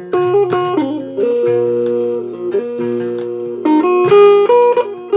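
A traditional West African plucked lute playing a melody. The first second is a quick run of plucked notes, the middle holds longer ringing notes over a lower steady tone, and from about three and a half seconds in there is another quick run.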